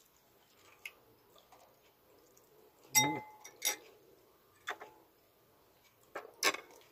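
A metal spoon clinking against a glass bowl of vinegar dip: a few sharp clinks, the loudest about three seconds in with a brief ring.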